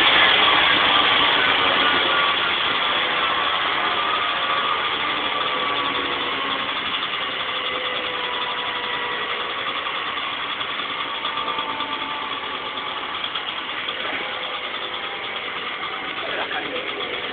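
Vespa 50 R's single-cylinder two-stroke engine idling, its note settling after a rev and slowly getting quieter. This is the engine's first running after more than twenty years out of use.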